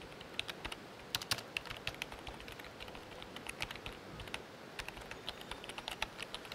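Typing on a computer keyboard: a run of quick, irregular key clicks as a sentence is typed.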